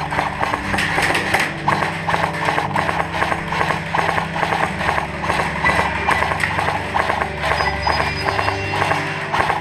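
Background music with a steady knocking, clip-clop-like beat over low held notes that change every couple of seconds.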